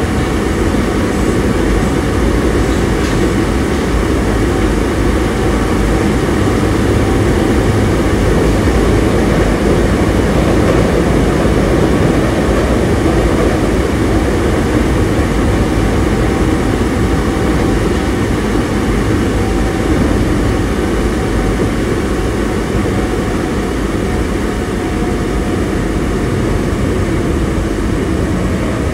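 Osaka Metro 22 series subway train running at speed, heard from inside the car: a steady, loud rumble of wheels on rail with a few faint steady tones above it.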